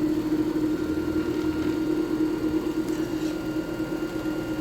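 JFJ Easy Pro disc repair machine running steadily: its motor hums with a constant low tone as it spins the disc against the buffing pad wetted with the blue polishing solution during a one-minute resurfacing cycle.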